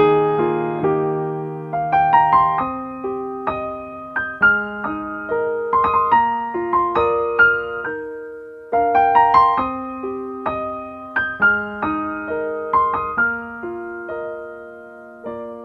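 Slow, gentle piano or electric-piano music: single notes played one after another in flowing broken chords, each note ringing and fading, with a short pause about halfway through and a final chord left to ring out near the end.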